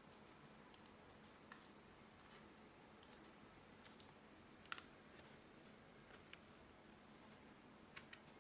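A few faint, scattered key clicks from an Office 5+ wireless keyboard being tested, the sharpest about halfway through and a pair near the end.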